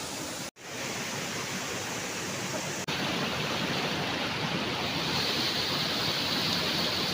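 Waterfall water rushing as a steady hiss. It drops out abruptly about half a second in, then comes back a little louder and brighter after about three seconds.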